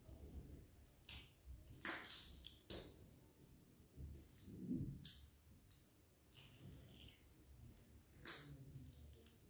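Fluted metal pastry wheel cutting strips of puff pastry on parchment paper: faint rolling and scraping with a handful of sharp clicks as the metal cutter meets the worktop, the loudest near the end.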